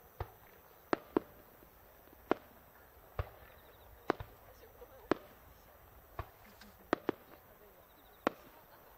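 Aerial fireworks going off in the distance: about a dozen short, sharp pops at uneven intervals, some in quick pairs.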